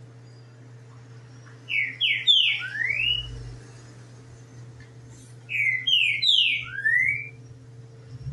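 Green-winged saltator (trinca-ferro) singing: two loud phrases of clear whistled notes a few seconds apart, each four or five quick notes ending in a rising slur. A steady low hum runs underneath.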